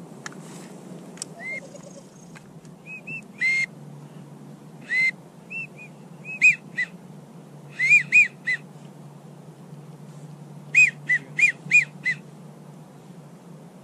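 Wigeon whistles: short whistled notes, each a quick rise and fall in pitch, some alone and some in quick runs of three to five.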